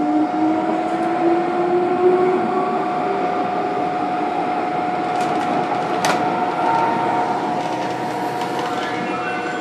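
MTR Disneyland Resort Line electric train running, heard from inside the car, with a motor whine rising in pitch over the first few seconds as it gathers speed. A steady tone runs over the rumble of the wheels, and there is one sharp click about six seconds in.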